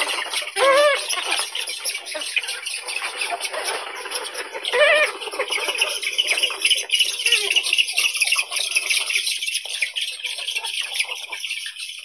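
Eurasian spoonbills calling at a colony: a dense, continuous chatter of high, raspy calls, with two louder pitched calls that rise and fall, about a second in and again near five seconds in.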